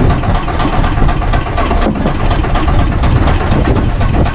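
Fishing boat's engine idling steadily.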